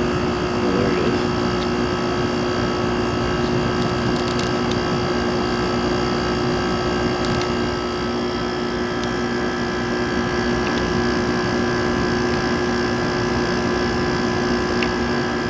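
Haier HWF05XCA 5000 BTU window air conditioner running in cooling mode on low fan: its Matsushita compressor and fan make a steady, very quiet hum with an even airflow whoosh, the sound of a unit that runs well.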